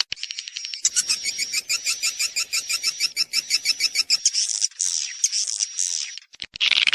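Swiftlets twittering: fast, high, clicky chirps in rapid trains of about ten a second, a mating call of the kind played to lure swiftlets into a nesting house. The trains break off briefly near the end before starting again.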